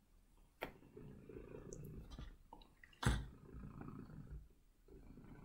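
A cat purring close by in low, rough stretches of about a second each, broken by short pauses. Two sharp knocks come about half a second in and about three seconds in; the second is the loudest sound.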